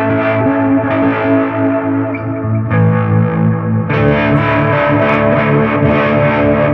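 Squier Jazzmaster electric guitar played through overdrive and effects pedals into a Fender Tonemaster Deluxe Reverb amp, ringing out sustained, overdriven chords. The chord changes about three seconds in and again about four seconds in.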